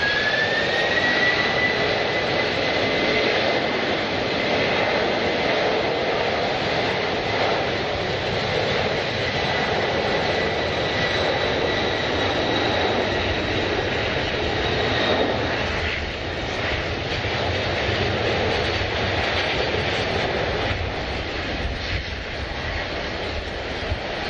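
Jet airliner engines running at high power: a whine rises in pitch at the start and then holds steady over a broad roar. The deep rumble grows stronger in the second half.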